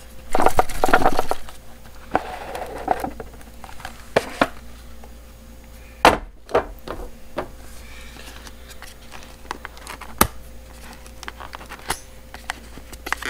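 A small cardboard product box being handled and opened on a tabletop: sliding and rustling of the packaging in the first few seconds, then scattered sharp clicks and light knocks.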